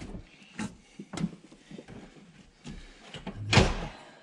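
Knocks and scrapes of a new all-aluminum radiator catching on the surrounding parts as it is worked down into the engine bay, ending in a louder clunk about three and a half seconds in as it drops into place.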